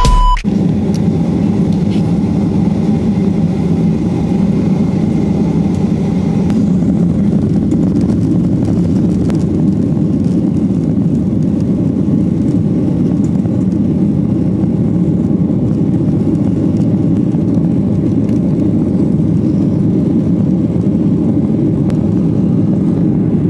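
Steady low rumble of a vehicle on the move, even and unbroken throughout.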